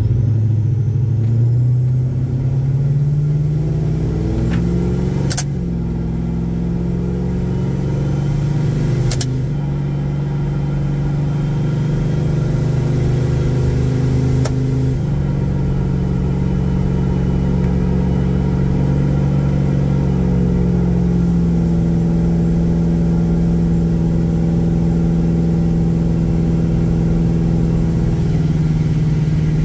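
Supercharged Ram R/T pickup's Hemi V8 accelerating, heard from inside the cab. The engine pitch climbs and drops back with three upshifts in the first fifteen seconds or so, then settles into a steady cruise.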